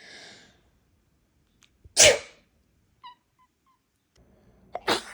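A person sneezing loudly twice, about two seconds in and again near the end. A few faint, short high chirps come between the sneezes.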